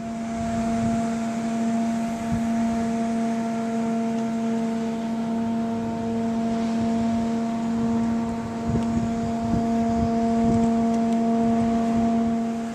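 A steady drone held at one unchanging pitch with several overtones, with a few dull low thumps between about eight and eleven seconds in.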